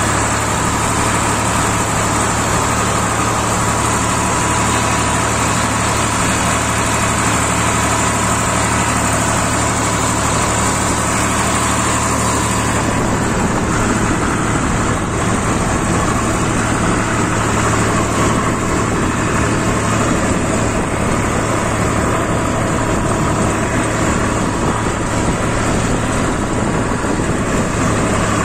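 Tractor's diesel engine running steadily under way, pulling across soft sand.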